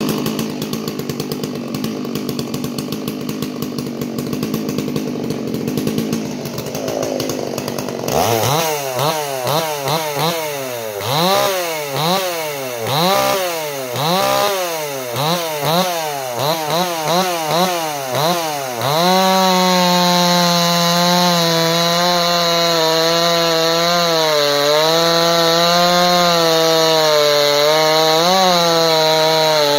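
Dolmar 116si two-stroke chainsaw with a 24-inch hardnose bar, running at idle at first, then revved up and down repeatedly. About two-thirds of the way through it goes to steady full throttle, cutting into a round of oak.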